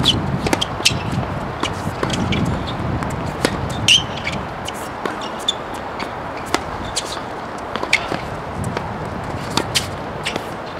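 Tennis rally on an outdoor hard court: sharp pops of racket strings striking the ball and the ball bouncing, coming at irregular intervals, the loudest about four seconds in. A low rumble sits under the first couple of seconds, and steady outdoor hiss runs beneath.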